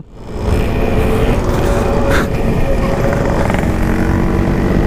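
Yamaha RX-King two-stroke single-cylinder engine running steadily through an aftermarket exhaust while riding at speed, with heavy wind rumble on the microphone.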